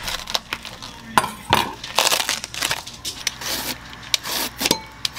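A knife crunching through a raw head of cabbage, then a hand-held slicer shredding the cabbage in quick, crisp strokes.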